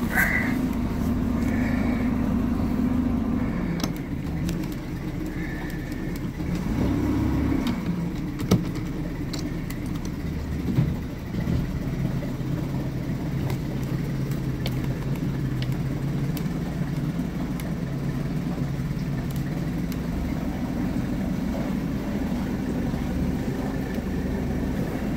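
1989 Hurricane deck boat's engine running at idle, a steady low hum that shifts briefly about seven seconds in. A couple of sharp knocks come a few seconds later.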